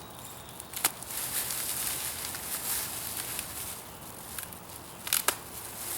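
Plastic wrapping crinkling and rustling as it is pulled off a newly unboxed bow, with a couple of sharp snaps, one about a second in and another just after five seconds.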